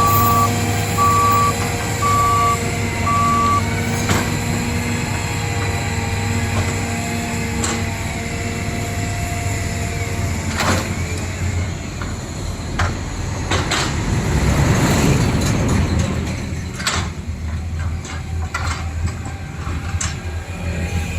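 Toy construction vehicles running: a reversing beeper sounds about twice a second for the first few seconds over a steady motor hum, with scattered knocks and clunks of the machines working.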